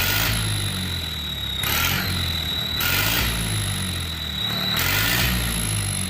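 Tractor diesel engine with a turbo-whistle fitted in its exhaust silencer, blipped four times over a running idle. A steady high whistle sounds throughout, and a hissing rush comes with each rev.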